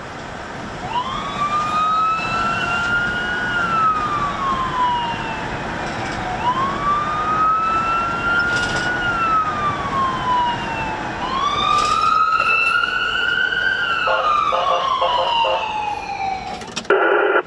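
Emergency-vehicle siren on a slow wail, rising and falling three times about five seconds apart, heard from inside the cab of a moving emergency vehicle over road noise. A short loud burst comes just before the end.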